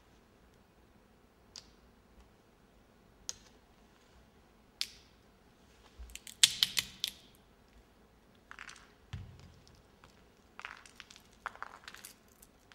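Metal nutcracker cracking a nut: a few separate light clicks, then a burst of sharp cracks about six seconds in as the shell breaks, followed by smaller crackles and clicks as fingers pick the broken shell apart.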